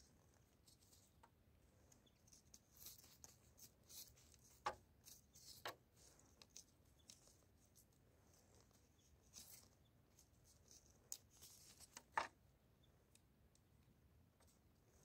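Faint, scattered rustling of grass and dry stalks from a cat pawing and biting at them, with three sharp clicks, the loudest near the end.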